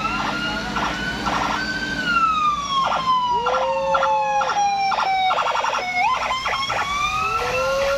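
Vehicle electronic siren wailing with a slow rising and falling tone, broken by clusters of rapid chirping pulses and two short swooping lower notes.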